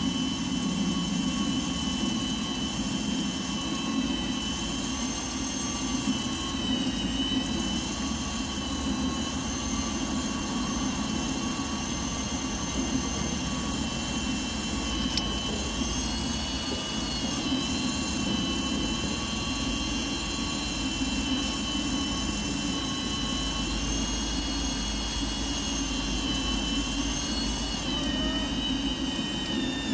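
A machine running steadily: a low rumble under a high whine that wavers slightly in pitch a few times.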